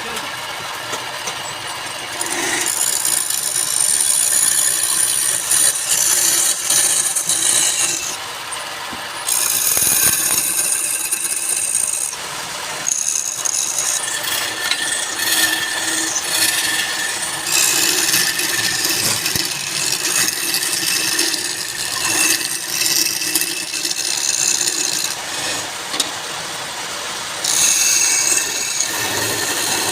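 Wood turning on a lathe: a tool scrapes and cuts the spinning wood with a loud, high-pitched hiss, in stretches of a few seconds with short pauses between cuts.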